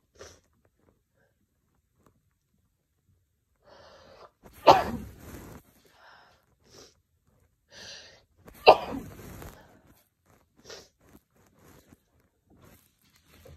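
A person with a head cold sneezes loudly twice, about four seconds apart, each sneeze preceded by a breath in and set off by snuffed chhinkni sneezing powder. Short quieter sniffs come between and after.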